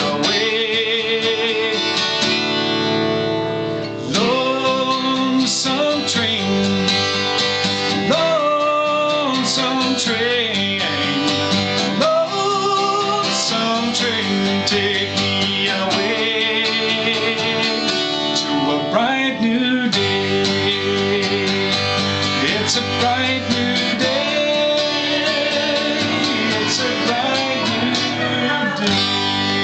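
Acoustic guitar strumming, with a wordless sung melody over it that glides and wavers in pitch.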